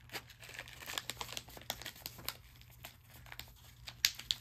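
Stiff paper packaging crinkling as it is handled, a tea pouch rustling with sharp crackles and clicks, a few louder ones near the end.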